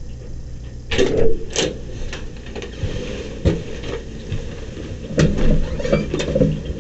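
A door latch clicks and the interview-room door opens with a couple of sharp knocks about a second in, then footsteps and the rustle of clothing and papers as two people walk in, over a steady low room hum.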